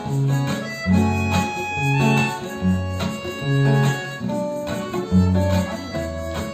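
Instrumental blues intro: guitar with harmonica over a bass line that steps to a new note about twice a second.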